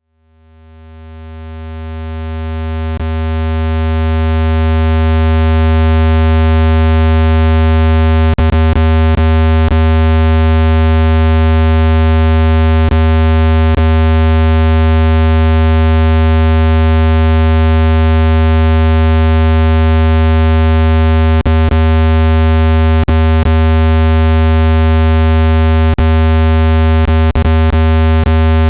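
Steady low buzzing test tone of the kind played through a phone speaker to shake water out of it. It fades up over the first few seconds and then holds unchanged, with a few faint clicks scattered through.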